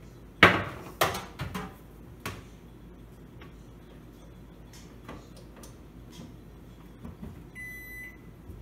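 A small countertop microwave being pushed into a wooden cabinet cavity: a cluster of knocks and bumps in the first two and a half seconds, the loudest just under half a second in, then a few faint taps. Near the end the microwave gives a single high electronic beep about half a second long as it powers up and its display lights.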